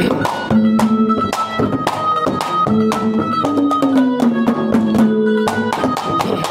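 Instrumental interlude of Haryanvi ragni folk music: held melody notes from the accompanying instruments over a steady drum beat, with no singing.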